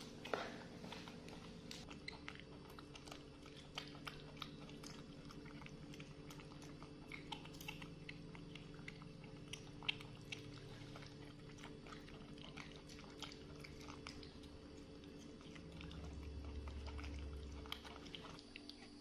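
Macaques chewing and biting pieces of boiled carrot: small, irregular wet clicks and crunches scattered throughout, over a steady low hum. A low rumble swells briefly near the end.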